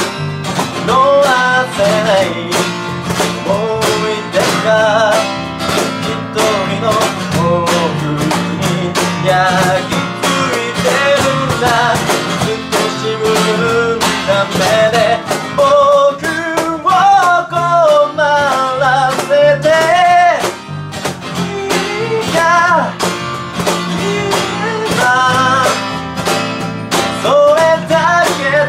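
A small band playing a song: an acoustic guitar strummed, an electric bass, a man singing the melody, and a steady percussion beat.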